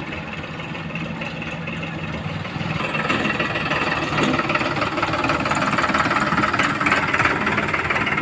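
Heavy diesel engine running steadily, picking up and growing louder from about three seconds in.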